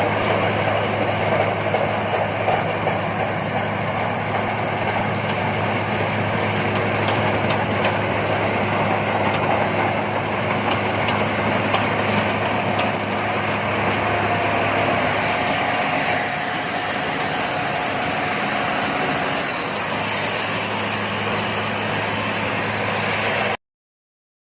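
Engine of a rice harvesting machine running steadily at a constant speed, with a strong low hum.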